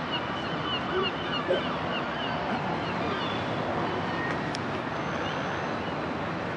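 Steady rushing background noise with faint voices and a run of small high chirps in the first couple of seconds.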